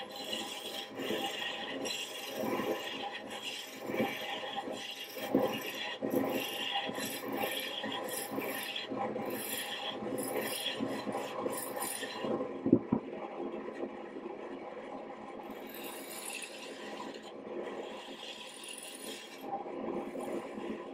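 Sandpaper rubbing against a wooden blank spinning on a lathe: a continuous scratchy sanding noise over the lathe's steady running hum. The sanding eases off about two-thirds of the way through, with a single sharp knock, then picks up again near the end.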